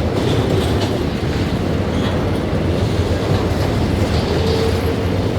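Freight train wagons rolling past, a steady loud rumble of steel wheels on the rails with rhythmic clickety-clack over the rail joints.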